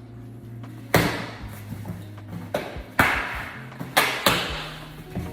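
Cardboard shipping box being opened by hand, with four sharp, loud cracks: one about a second in, one about three seconds in, and two close together near the end, each fading quickly.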